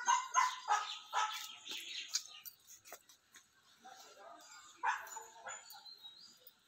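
A dog barking: a quick run of short barks in the first second and a half, then one more bark about five seconds in.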